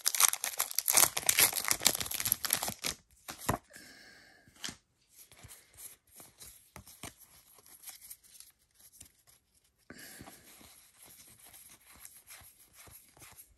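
Foil Pokémon booster pack wrapper crinkling and tearing open, loud and crackly for the first three seconds and ending in a sharp snap. Then soft clicks and slides of the trading cards being flipped through, with a faint rustle of cards sliding together near the end.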